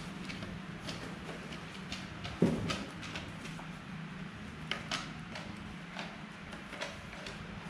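Light plastic clicks and taps of a toy foam-ball blaster being handled, with one low thump about two and a half seconds in, over a steady low hum.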